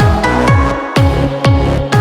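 Background electronic dance music with a steady kick drum about twice a second under a synth melody.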